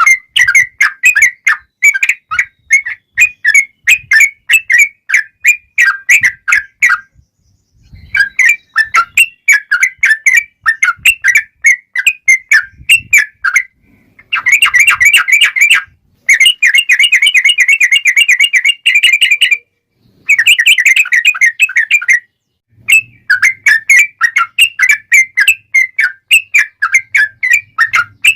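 Yellow-vented bulbul (trucukan) singing its long rapid chattering song ("ropel panjang"). It sings loud, fast runs of bubbly chirps that last a few seconds each, separated by brief pauses.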